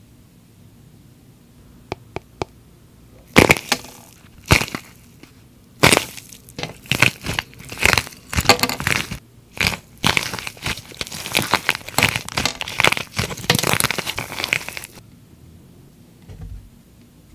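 Hardened outer shell of a plaster clay star cracking and crunching as hands break it apart: a few sharp snaps starting about three seconds in, then a long run of crackling crunches that stops a couple of seconds before the end.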